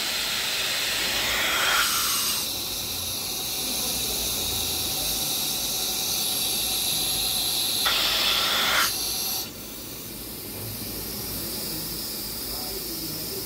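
Compressed air hissing steadily from the measuring jets of a combined air plug gauge and air ring gauge. The hiss swells briefly twice as the high setting master is worked onto the gauge, then drops to a lower, steadier level about nine and a half seconds in as the master closes over the jets.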